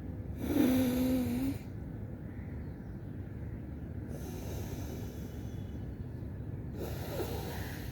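Forceful breathing through the nose during Nadi Shodhan, alternate-nostril yoga breathing: three separate breaths. The first comes about half a second in and is the loudest, with a steady low hum-like tone under the rush of air. Fainter breaths follow about four seconds in and near the end.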